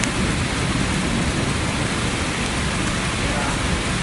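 Heavy rain and floodwater rushing down a flooded street: a steady, unbroken wash of water noise.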